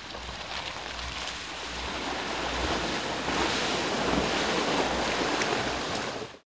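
Bentley Bentayga SUV wading through a flooded track: a steady rush of splashing water over a low rumble, growing louder over the first few seconds, then cutting off abruptly near the end.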